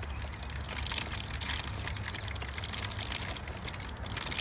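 Plastic compost bag rustling and crinkling as it is handled and tugged at a tight knot to get it open.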